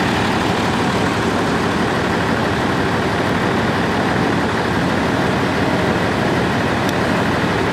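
A vehicle engine running steadily, with an even rumble and hiss that does not change.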